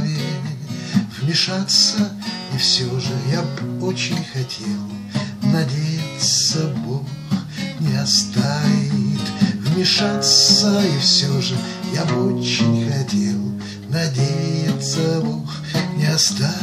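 Acoustic guitar strummed as the accompaniment to a bard song, running steadily throughout.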